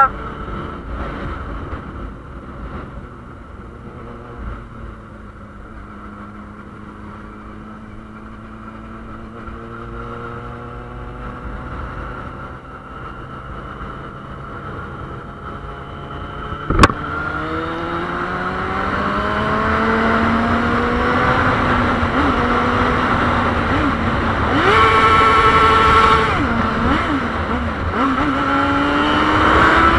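Yamaha Fazer 600 inline-four motorcycle engine with a gutted stock muffler, under way. The engine note sinks as the bike slows in the first part, a sharp knock comes a little past halfway, and then the revs climb steadily and it gets louder as the bike accelerates.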